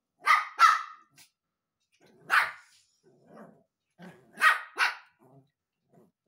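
Small long-haired dog barking in play, with sharp, high barks: a quick pair, a single one, then another quick pair.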